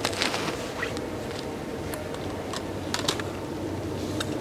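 Light scattered clicks and rustles of gloved hands handling camp gear, over a steady distant drone of chainsaws and trains.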